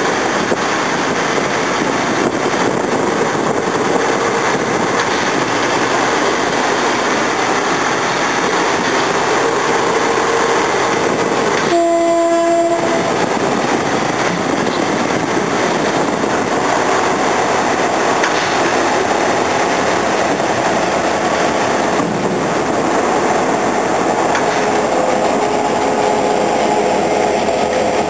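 Diesel locomotive running and rolling toward and past close by, wheels on the rails, with one short horn blast about twelve seconds in.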